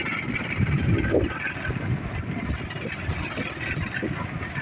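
A vehicle running on the move, with an uneven low rumble of wind buffeting the microphone.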